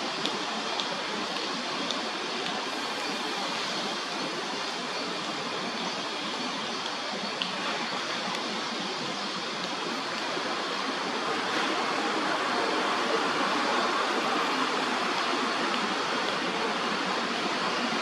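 Steady rushing background noise, growing louder about eleven seconds in, with a few faint ticks.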